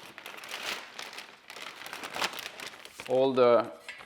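Plastic wrapping crinkling and rustling as floorboard parts are handled and moved into a pile, with a short bit of a man's voice about three seconds in.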